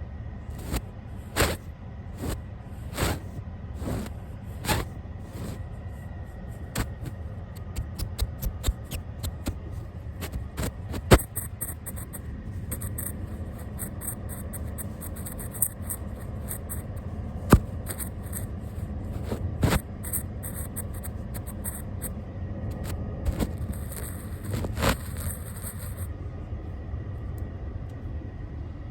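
Brush bristles stroked across a camera and its microphone. Scratchy strokes come at an even pace for the first few seconds, then turn quicker and busier, with a few sharp taps, over a low rumble of handling noise.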